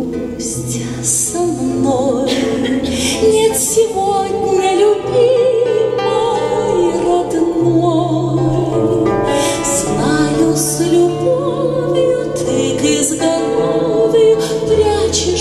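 A woman singing solo into a microphone in long held notes with a strong vibrato, accompanied by acoustic guitar.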